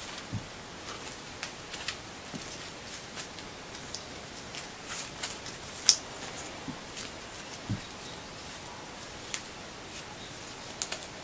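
Hair and a flexible plastic Afrithreader being handled as it is wound around the head: faint rustling with scattered light clicks, the sharpest about six seconds in, and a couple of soft thumps, over a steady hiss.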